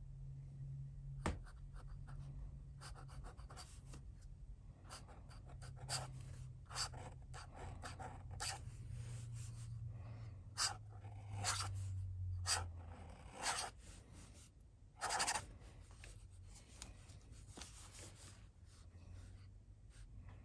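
Flex nib of a Waterman 52V fountain pen scratching across paper in a run of short, irregular calligraphy strokes, louder around the middle. A faint steady low hum sits underneath.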